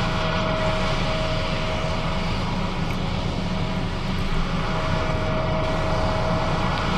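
John Deere S660 combine running steadily while harvesting: a low engine rumble with machine noise and a steady whine, which fades for a moment midway.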